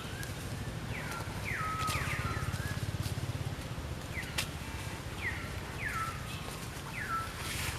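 A series of short animal calls, each sliding sharply down in pitch and then holding briefly, repeated every half second to a second over a steady low rumble.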